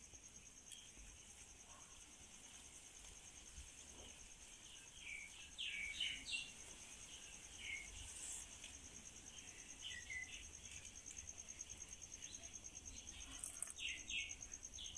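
Faint outdoor ambience: an insect trilling steadily at a high pitch, with scattered short bird chirps, several falling in pitch, from about five seconds in.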